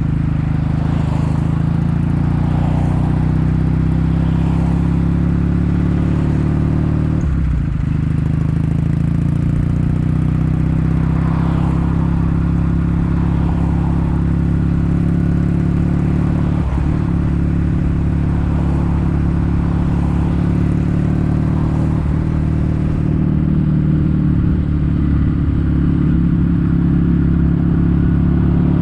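Kawasaki W800's air-cooled parallel-twin engine running steadily under way, its exhaust note coming through Yamato stainless-steel Cabton-style silencers. A few brief dips break the note.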